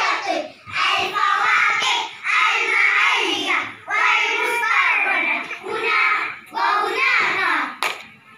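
A group of young children reciting in unison, a chanted choral recitation in Arabic, in phrases of a second or two with short pauses between them. A single sharp click comes near the end.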